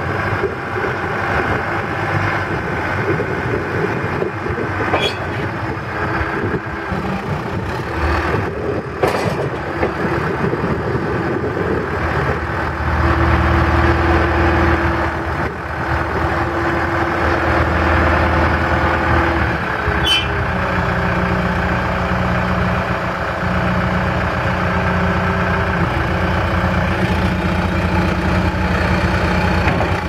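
John Deere 310G backhoe loader's four-cylinder diesel engine running while the front loader arm and bucket are worked by the hydraulics. The engine gets louder and deeper for several seconds past the middle, then settles back, with a few sharp clicks along the way.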